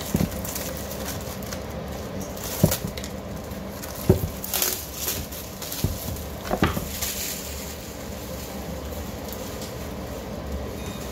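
Clear plastic wrap being cut and pulled off a bamboo cheese board, crinkling, with a few sharp knocks as the board is handled. The handling noise dies down about seven seconds in.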